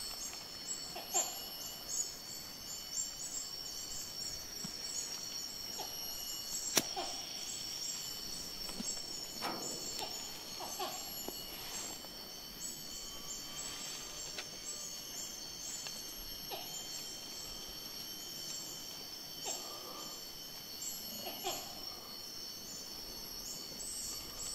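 Forest ambience: a steady high-pitched insect drone with many repeated bird chirps and scattered short calls, and one sharp click about seven seconds in.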